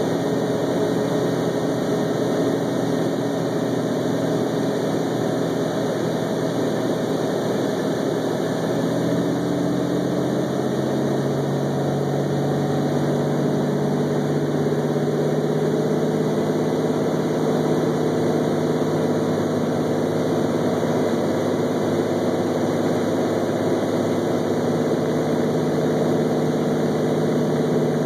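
Cessna 206's piston engine and propeller running steadily in flight, heard from inside the cabin; the engine note shifts in pitch about ten seconds in.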